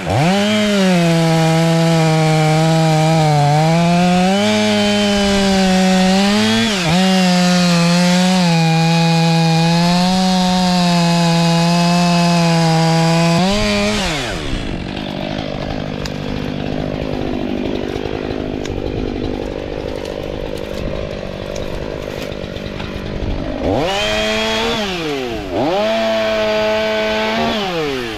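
STIHL MS 500i fuel-injected two-stroke chainsaw at full throttle, its pitch wavering as it cuts wood. About halfway through the revs fall away suddenly and the saw runs low. Near the end it is revved up and down several times.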